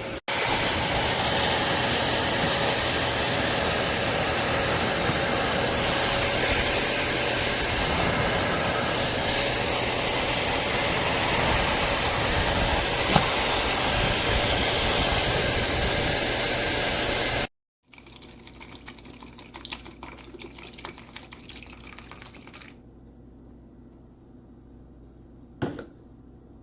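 Hoover PowerDash GO Pet+ portable spot cleaner's motor running steadily, loud, sucking up water. It stops suddenly about two-thirds of the way through, leaving quieter faint clicks and one sharp knock near the end.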